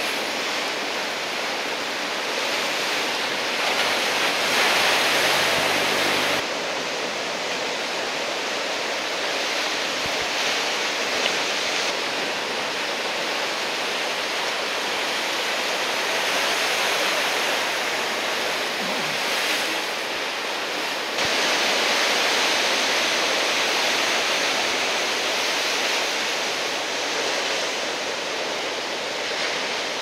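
Heavy typhoon swell breaking and washing toward the shore: a steady rushing of surf that swells louder a few times and changes abruptly twice, about six and twenty-one seconds in.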